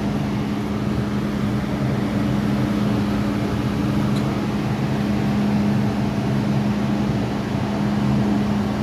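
MTR M-Train electric multiple unit standing at a platform with its doors open: a steady hum of its onboard equipment, one constant low tone over an even rush of air noise.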